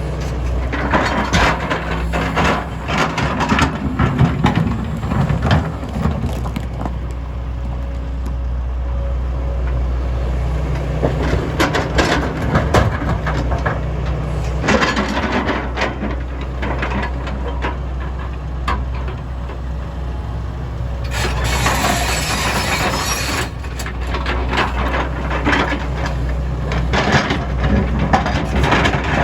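MST M220LC excavator's diesel engine running steadily under load while broken stone clatters and knocks in the bucket and onto the truck. About three quarters of the way through, a loud hissing rush lasts about two seconds.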